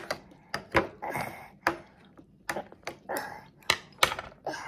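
A metal baby spoon clinking and scraping against a small plastic bowl as a toddler scoops up food: a quick, irregular run of sharp taps, with two short scrapes about a second in and again near three seconds.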